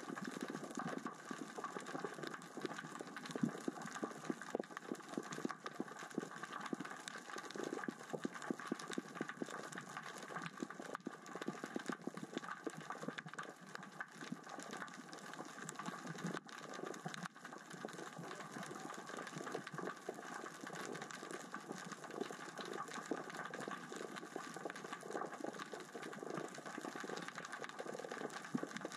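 Underwater crackling: a dense, unbroken patter of small clicks from small rocks rolling across the sea floor in the current and tide.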